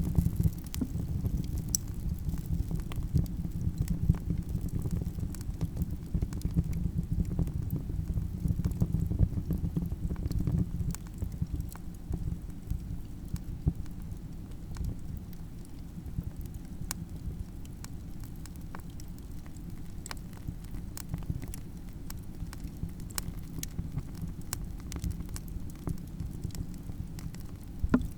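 Wood fire burning with a steady low rumble and many scattered sharp crackles and pops, the rumble a little stronger in the first ten seconds or so.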